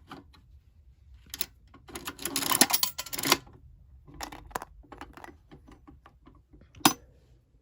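Coin-operated prize vending machine being worked: a run of mechanical clicks and rattles, the loudest a dense rattling stretch about two to three seconds in as the mechanism turns and dispenses a prize, then a single sharp click near the end.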